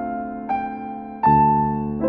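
Background music: a slow piano melody, single notes struck about once every three-quarters of a second, each ringing and fading before the next.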